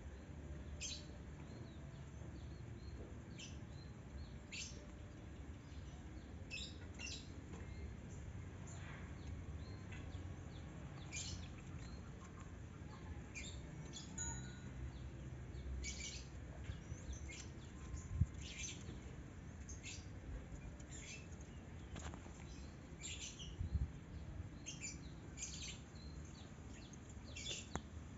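Birds chirping: short, high chirps repeated irregularly over a faint low outdoor rumble, with a few light taps about two-thirds of the way in.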